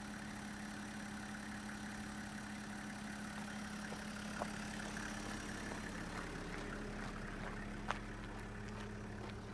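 Toyota Coaster bus's 1HZ six-cylinder diesel engine idling steadily, with a couple of light clicks of footsteps on gravel.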